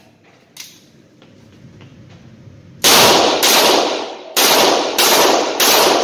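Rock Island Armory AL9.0 9mm six-shot revolver fired in quick succession in an indoor range: five shots about half a second apart, each echoing off the lane. A light click comes before the shooting starts.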